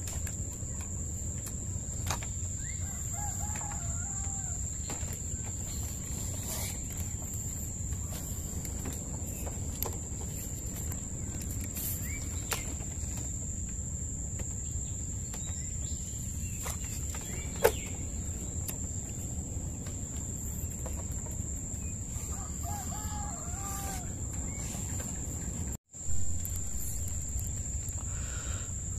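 A rooster crowing twice, a few seconds in and again some twenty seconds later, over a steady high-pitched whine and low background rumble. One sharp click comes about two-thirds of the way through, and the sound drops out for an instant near the end.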